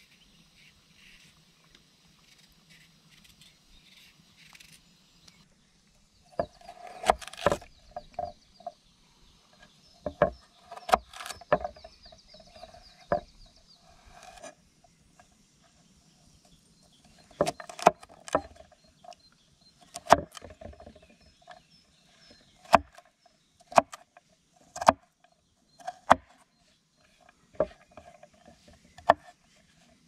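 A carrot being peeled with a knife, faint scraping, then from about six seconds in a chef's knife chopping carrot on a wooden cutting board: single sharp knocks of the blade on the board, in small irregular groups with pauses between.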